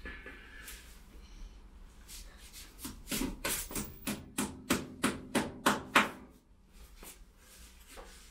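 Small hammer striking at the wall: a quick, even run of about a dozen taps, some three a second, from about three to six seconds in, the last ones loudest.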